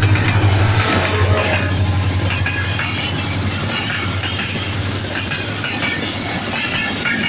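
HGMU-30 diesel locomotive passing close by, its engine drone fading about a second in. Passenger coaches follow, rolling past with a steady rumble and clatter of wheels on the rails and thin high squeals.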